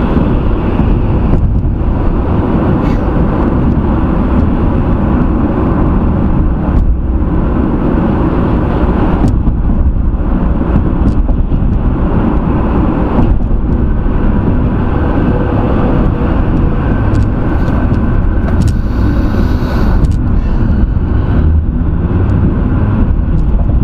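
Steady road and tyre noise of a car driving at highway speed, heard from inside the cabin.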